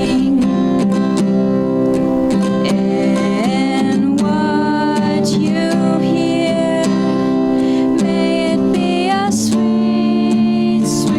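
Worship song with acoustic guitar strumming and a singing voice holding and sliding between notes.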